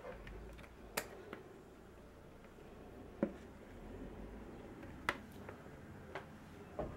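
A few short, light clicks a second or two apart, about four in all, over a quiet room: a spatula tapping and scraping against a plastic jug as thick apple-sauce pudding is scraped out into a cake tin.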